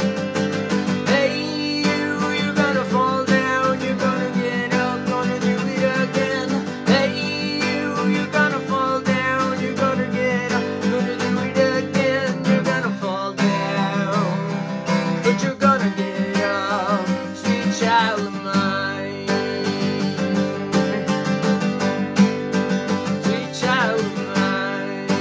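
Acoustic guitar strummed in a steady rhythm, with a man's voice singing over it at several points.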